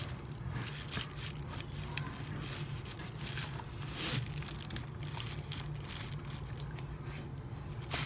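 A thin plastic grocery bag rustling and crinkling as a cardboard carton inside it is handled, with irregular scrapes and clicks over a steady low hum.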